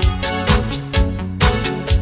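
Background music with a steady beat, about two beats a second, over sustained instrumental notes.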